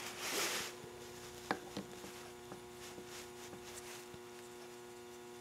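Faint, sparse clicks and light ticks of a tool working the small brass pilot jet out of a motorcycle CV carburetor's float-bowl side, over a steady mains hum. A short hiss at the start, and the sharpest clicks come about a second and a half in.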